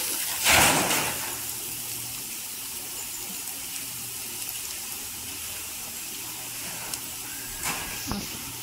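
Sliced onions, curry leaves and ground spices sizzling steadily in hot oil in a nonstick pan. A louder burst of sizzling and scraping comes from a wooden spatula stirring about half a second in, and there are a couple of soft knocks near the end.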